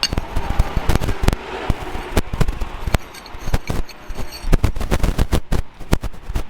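Hammer blows on steel, a quick irregular run of sharp knocks, roughly three to four a second.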